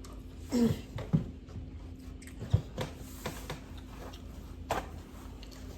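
A person chewing a mouthful of grilled salmon and vegetable salad close to the microphone: scattered wet mouth clicks and smacks, with a brief voiced hum about half a second in.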